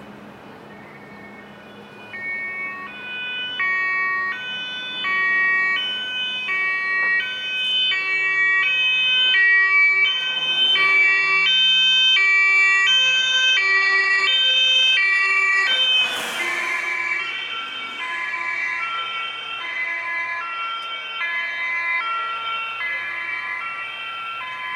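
Two-tone siren (German Martinshorn) of a fire-brigade Mercedes-Benz Sprinter on an emergency run, switching between a high and a low tone about every 0.7 seconds. It grows louder as the vehicle approaches. The vehicle passes close about 16 seconds in with a brief rush of road noise, and the siren then sounds a little lower and fainter as it moves away.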